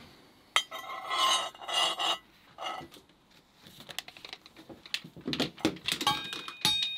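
Forged steel trace hook clinking against a steel plate as it is handled and set down: a sharp click, several short ringing metal knocks, then a run of small clicks and rattles with a brief ringing tone near the end.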